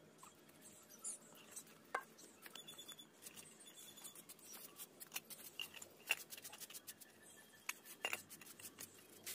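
Faint, scattered light clicks, taps and clinks of small hard objects, coming irregularly.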